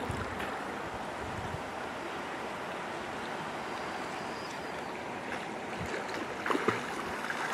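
Water sloshing and gently splashing as a person swims breaststroke through a lake, with a few sharper splashes about six and a half seconds in.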